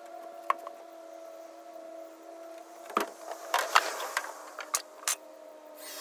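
Clicks and knocks of hand tools and hardware being handled, about halfway through, over a steady hum of a few held tones. Near the end a cordless drill runs briefly.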